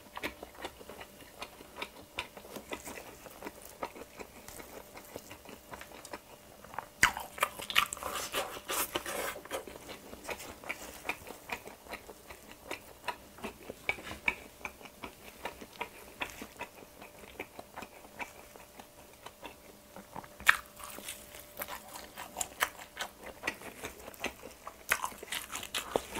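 Close-miked eating of a pan-fried Korean kimchi pancake (kimchijeon): bites with crisp crunching and moist chewing, a run of small clicks and crackles. It is loudest in a cluster of bites about seven to nine seconds in, with a sharp crunch about twenty seconds in.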